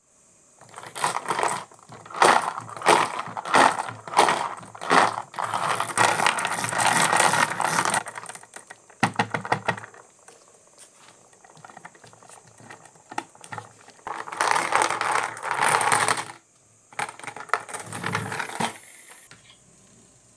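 Marbles rolling and clattering down a wooden HABA marble run: quick runs of clicks and knocks as they drop through the pieces, with a dense rattle of many marbles together at two points and a quieter spell between.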